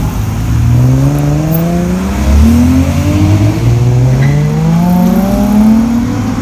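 A car engine accelerating hard under load, its pitch climbing steadily. Partway through the pitch drops at a gear change and climbs again through the next gear, before easing off near the end.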